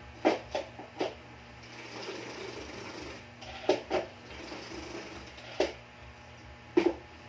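Spin mop being worked, its handle pumped up and down: a whirring mechanical rattle broken by several sharp clacks.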